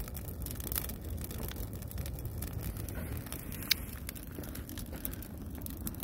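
Firewood burning hard in a perforated metal fire bucket: a steady low rumble of flames with frequent crackles and pops, one sharper pop a little past the middle.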